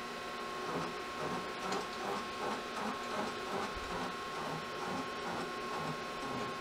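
Milling machine running with a steady whine and a rhythmic mechanical sound repeating about three times a second as the mill is hand-fed down to a DRO depth.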